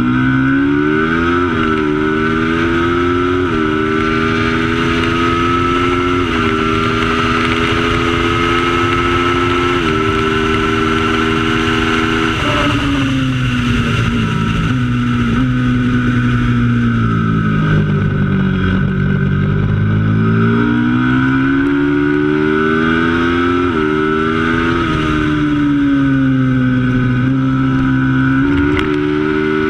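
Twin-cylinder racing motorcycle engine at full race pace, pulling hard with stepped changes in pitch as it shifts up through the gears, then dropping in pitch under braking and downshifts about twelve seconds in and again around eighteen and twenty-four seconds, before accelerating again.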